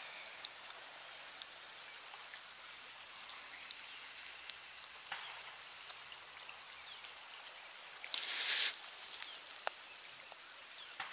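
Quiet creekside ambience: a faint steady wash of flowing water with scattered light ticks, and one short louder burst of noise about eight seconds in.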